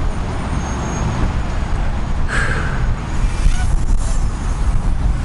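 Wind buffeting the microphone: a steady, uneven low rumble, with a brief hiss about two and a half seconds in.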